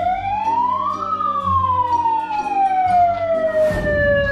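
A siren wailing: its pitch climbs for about a second, then slides slowly down, over a low steady drone. A brief rush of noise comes near the end.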